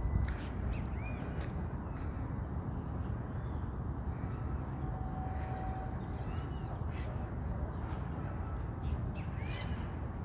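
Birds chirping with short, scattered calls, thickest in the middle, over a steady low rumble.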